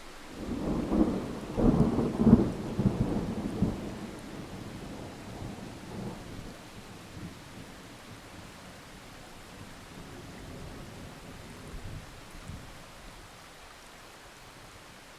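A thunderclap rumbling over steady rain. It swells loudest in the first few seconds, then rolls away into fainter rumbles while the rain hiss carries on.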